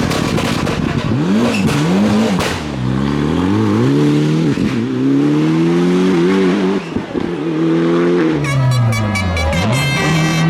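Rally car engine revving hard, its pitch climbing and dropping several times through throttle lifts and gear changes, with rapid crackles in the first couple of seconds. About eight seconds in, a shrill high-pitched squeal joins as the engine note dips and climbs again.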